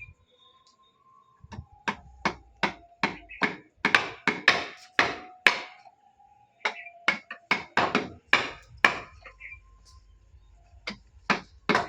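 Hammer blows on wood during carpentry work on a wooden door frame: three runs of quick strikes at close to three a second, with short pauses between runs.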